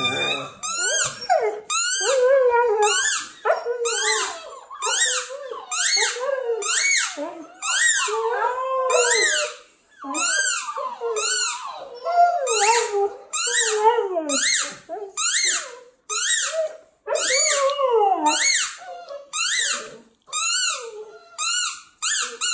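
A squeaky toy squeezed over and over, about two squeaks a second, each squeak rising and falling in pitch. Underneath, a husky puppy howls and whines along in a lower voice.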